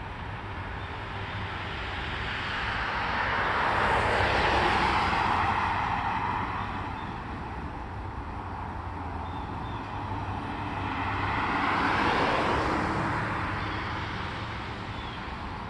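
Two cars driving past one after the other, each a swell of tyre and engine noise that rises and fades, the first loudest about four seconds in and the second about twelve seconds in.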